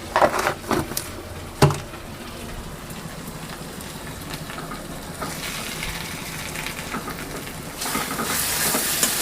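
Ground spices and chilli frying in hot oil in a pan, sizzling steadily, with a few sharp knocks in the first two seconds. The sizzle grows louder about five seconds in and again near the end.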